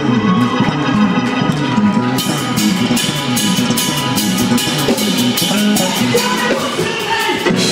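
Live church band playing an up-tempo instrumental: electronic keyboard and electric bass running a moving line, over a drum kit whose cymbal strokes come thick and steady from about two seconds in.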